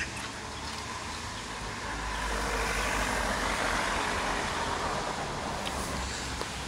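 A road vehicle passing on a city street: a rushing traffic noise that swells to a peak around the middle and fades again, over a steady low traffic rumble.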